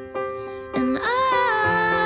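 Pop song playing, steady held backing chords with a singing voice coming in about a second in.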